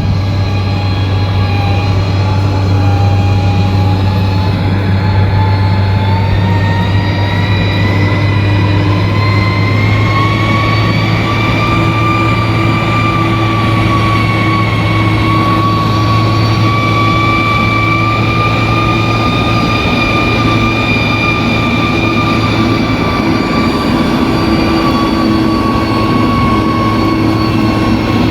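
Bulldozer's diesel engine running steadily under load, a deep drone with a high whine that rises in pitch over the first ten seconds and then holds.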